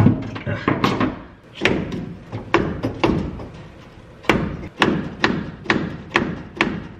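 Repeated hammer blows on a steering shaft, about two a second with a short lull a little past the middle, each knock ringing briefly. The blows drive a collapsed Jeep Cherokee XJ steering shaft back up into the steering column.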